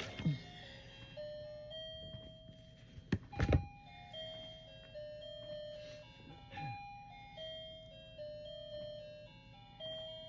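A simple electronic tune played one pure note at a time, like a chiming jingle, with a short knock or handling sound about three and a half seconds in.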